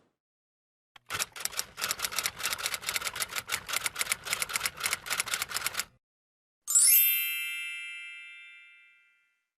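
Typewriter keys clattering in a fast run of strokes for about five seconds, then a single bell ding that rings out and fades slowly, like a typewriter's end-of-line bell.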